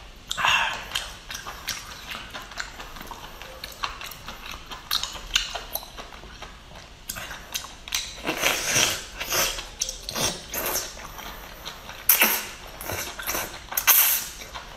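Close-miked eating sounds of a whole cooked octopus in chili oil: wet sucking and slurping at the tentacles with chewing and lip smacks, an irregular run of short squelches that is densest in the second half.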